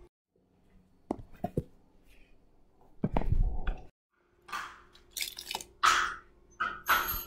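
Aluminium foil crinkling in several short bursts as hands pick up and handle soft lumps of dog-treat mixture on it, after a few knocks and a louder handling bump.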